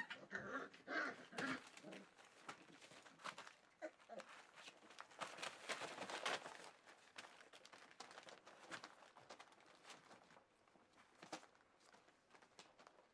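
Four-week-old Welsh Springer Spaniel puppies at play. A few short puppy growls come in the first two seconds, then soft scratching and rustling of paws on bedding and newspaper, fading toward the end.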